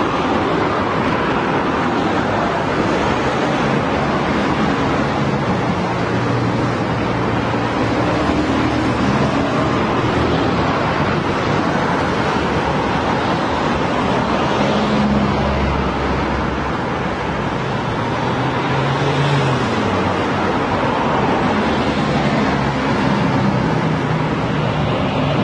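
Continuous road traffic: a steady wash of tyre and engine noise, with the low hum of individual vehicles' engines coming and going as they pass.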